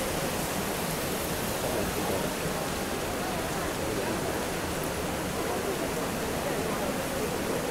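Steady rushing of a shallow river flowing through a stone-walled channel, with a small cascade pouring from the wall into it.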